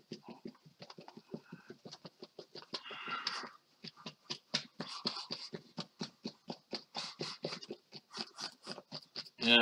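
Fan brush tapping paint onto a stretched canvas: a quick run of light taps, several a second, with a couple of short scrubbing strokes of the bristles across the surface.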